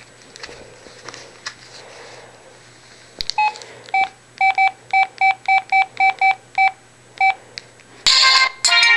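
A mobile phone's key beeps: about a dozen short beeps at one pitch over about four seconds, some in quick pairs, as buttons are pressed. Then a ringtone song starts playing loudly from the phone's speaker near the end.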